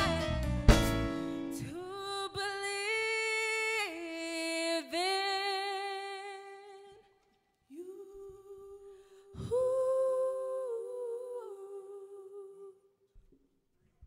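Female vocal trio singing long held harmony chords with the band dropped out, each chord sliding off at its end. A single hit from the drum kit comes a little under a second in and another about nine seconds in, with a short gap between the chords. The full band crashes back in at the very end.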